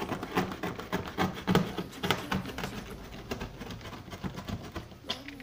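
Irregular scratching and rubbing on cardboard as a circle is traced around the rim of an upturned plastic bowl, with small knocks as the bowl is held and shifted.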